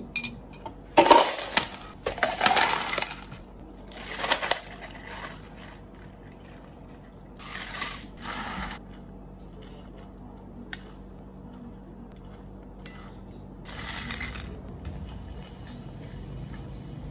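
Ice cubes clattering from a scoop into clear plastic cups in several short bursts. Near the end, liquid is poured from a glass bottle over the ice.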